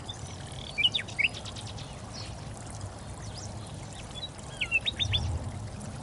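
Birds chirping over a steady rush of running water, with a quick cluster of chirps about a second in and another near the end.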